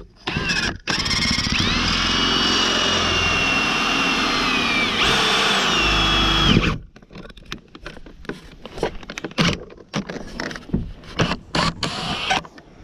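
Power drill with a 7/32-inch bit drilling a hole in the car's door panel: a short burst, then a steady whine for about six seconds that steps up in pitch near the end and cuts off suddenly. Light clicks and knocks of handling follow.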